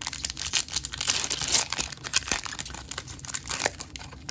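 Foil wrapper of a Panini Donruss basketball card pack being torn open and crinkled by hand: a dense run of crackles, loudest a second or two in.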